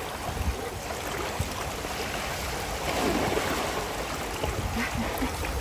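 Steady rush of running water, as water flows down a pool waterslide.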